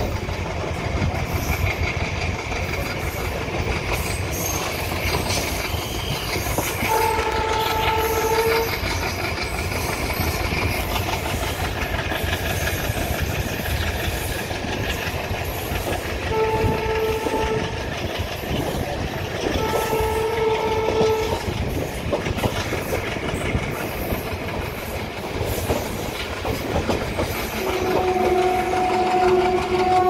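Horn of an ALCO diesel locomotive, sounded over the steady rumble and clatter of an express train running through without stopping. There are three short blasts of a second or two each, then a louder, lower-pitched blast that begins near the end and is still sounding.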